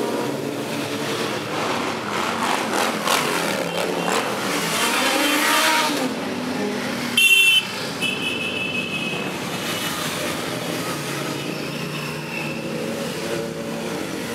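A line of motorcycles riding past one after another, engines running and revving as they go by. About seven seconds in, a short, loud, high-pitched horn blast, then fainter honks for a couple of seconds.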